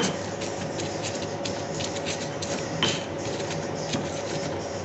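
Stone pestle (ulekan) crushing shallots, garlic and chilies in a stone mortar (cobek): irregular knocks and scrapes of stone on stone as the spice paste is ground.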